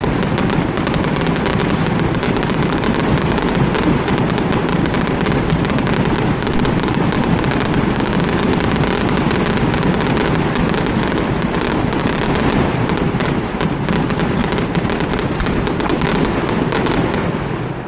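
Aerial fireworks display in full barrage: a dense, continuous run of booms and crackling bursts with no gaps, easing off near the end.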